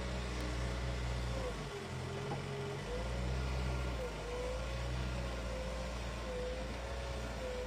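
A motor running with a steady low rumble that thins out briefly about two seconds in, and a thin tone wavering slowly up and down above it.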